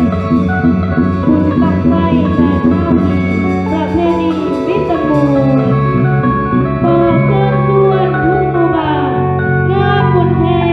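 Pop song music with guitar over a steady bass, the melody gliding between notes.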